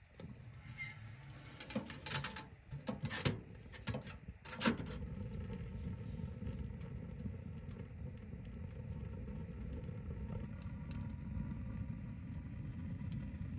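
Several sharp metallic clicks and clanks from a titanium wood stove's door being shut and latched, then a steady low rumble from about five seconds in.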